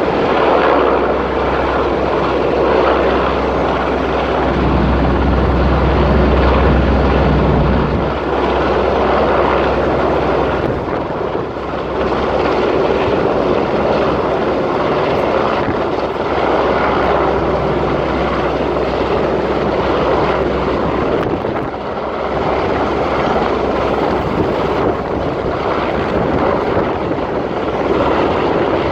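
Helicopter rotor and engine running steadily as it hovers, a dense loud churning noise, with a low drone underneath that swells about five seconds in and drops away around the middle.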